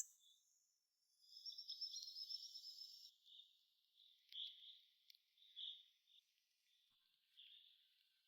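Near silence with faint high bird chirps: a quick chirping trill starting about a second in, then a few short single calls.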